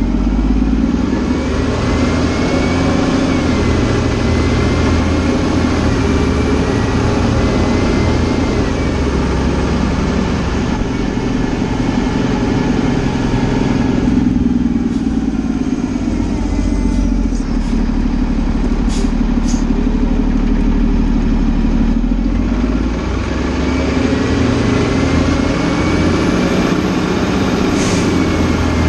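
Fire engine's diesel engine and drivetrain running under way, with a whine that rises and falls twice as the truck speeds up and slows down.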